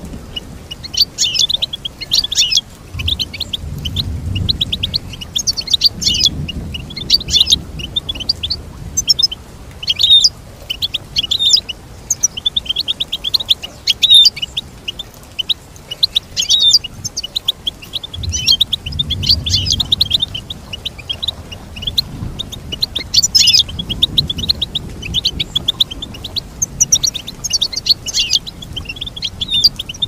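European goldfinch singing: long phrases of rapid, high twittering and trilled notes with only brief pauses between them.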